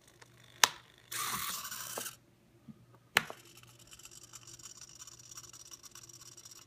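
Arduino useless box at work: a sharp click as its nail arm flips the toggle switch, about a second of servo whirring as the arm pulls back, then a snap as the wooden lid drops shut about three seconds in, followed by a faint buzzing.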